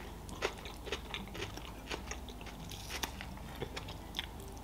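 Close-miked chewing of a mouthful of food, with irregular wet mouth clicks and smacks several times a second.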